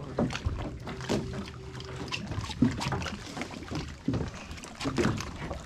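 Irregular knocks and clunks on a small aluminum jon boat, with a little water movement alongside.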